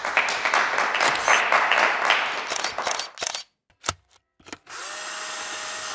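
A small group applauding for about three seconds, the claps dense and fast, then a couple of knocks. For the last second or so, a steady hiss with a faint hum that stops suddenly.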